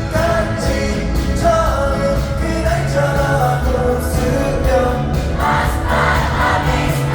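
Live pop song played loud over a concert sound system: a sung melody over a steady band backing.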